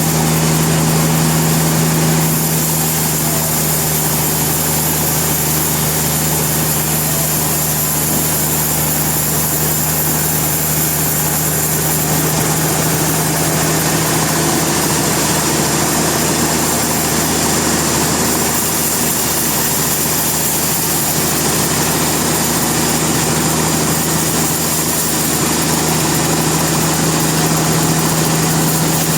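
Sawmill machinery running steadily: a constant engine hum under a loud, even noise that does not let up.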